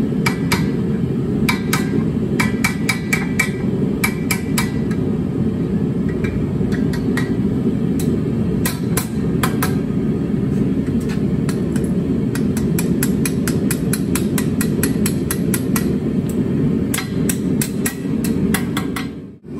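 A hand hammer taps red-hot steel against an anvil in irregular runs of light, quick blows, coaxing a scroll to roll over evenly. A steady low roar runs underneath the strikes, and the sound cuts off abruptly just before the end.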